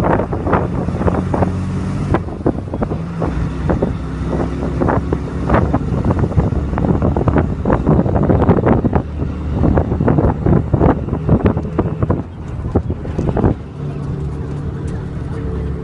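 Inside a moving bus: the engine's steady low hum under constant rattling and clattering of the bus body and fittings. Near the end the rattling eases and the engine hum becomes smooth and steady.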